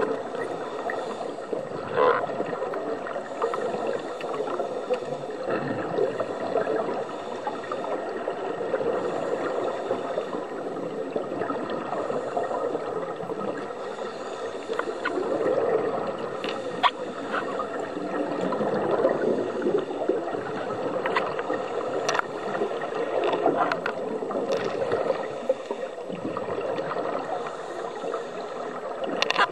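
Underwater sound of scuba divers breathing through their regulators: a steady rushing and gurgling of exhaust bubbles that swells and fades with each breath, with a few sharp clicks.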